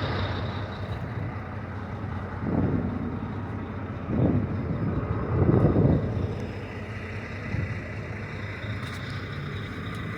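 Low, steady rumble of motor vehicle engines, swelling louder three times.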